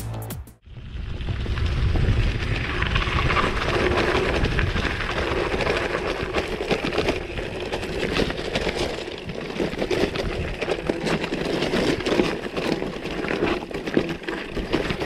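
Gravel bike rolling fast down a rough gravel track: the tyres crunch over loose stones and the bike rattles with many small clicks and knocks, over a dense steady rushing noise.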